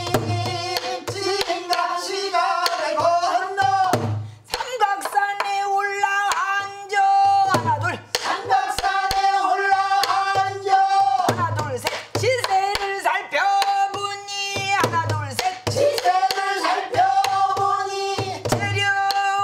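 Pansori singing: long held, wavering notes in a full throat-voiced style. Under it, low strokes on a buk barrel drum come every second or two.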